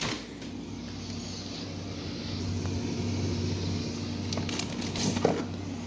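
Freezer door pulled open at the start, followed by a steady low hum with a higher tone above it from the open freezer. About four seconds in, a cardboard box of frozen corn dogs is pulled out from among the frozen packages, with a few quick knocks and scrapes.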